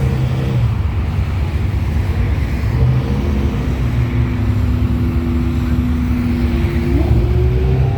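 Sports car engine running with a deep, steady rumble; its tone climbs slowly and rises more quickly about seven seconds in.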